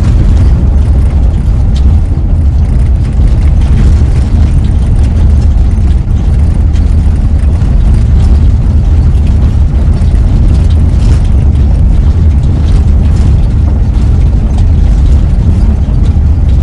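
Dodge Grand Caravan minivan climbing a steep road in first gear: a loud, steady low rumble of engine and road noise.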